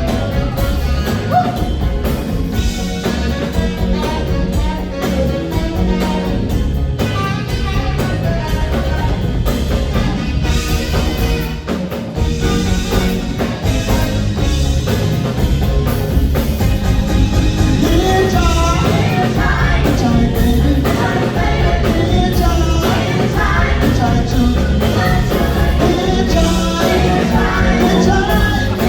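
Live band playing an up-tempo soul number with a steady beat, a singer's voice carrying over it and growing louder in the second half.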